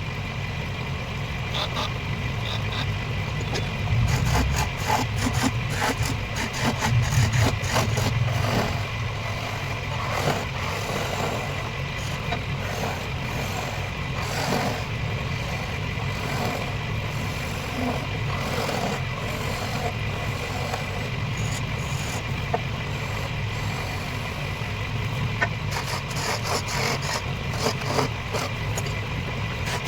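Wood lathe running steadily with a constant high whine and low hum, while a cutting tool scrapes unevenly against the spinning wood.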